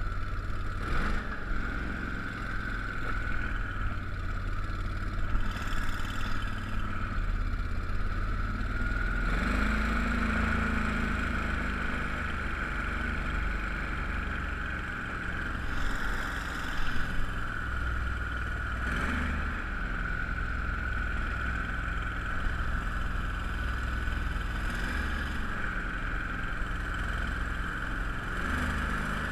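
A 31 hp Mud Buddy mud motor running steadily, pushing a jon-style duck boat up the river at speed. A few brief knocks come through over the motor.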